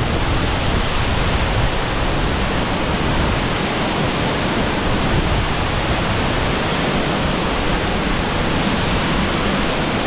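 Waterfall pouring close by: a loud, steady noise of falling water that does not let up.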